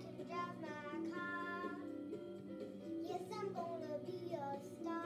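Pop-rock backing track playing with a young child singing along over it, holding a few notes.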